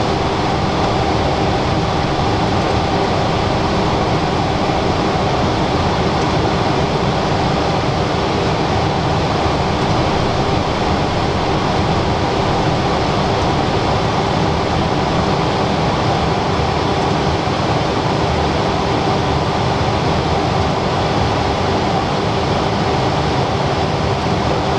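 Steady in-flight cockpit noise of a Cessna Citation Latitude business jet: an even rush of air with a faint hum of a few steady tones beneath it, unchanging throughout.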